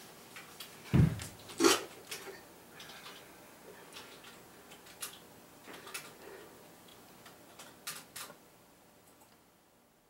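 A man on an ab roller collapses flat onto the floor with a heavy thud about a second in. A sharp knock follows, then scattered light clicks and taps that fade out near the end.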